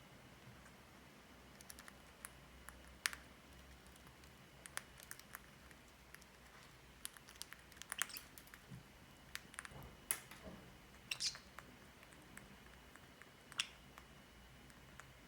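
Faint, irregular sharp clicks and taps from a green-cheeked conure's beak working at a foraging toy and its snack, with a few louder clicks among them.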